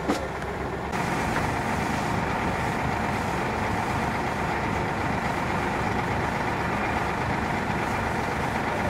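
Steady, heavy engine-like running noise mixed with a rushing hiss, stepping up in level about a second in and then holding steady.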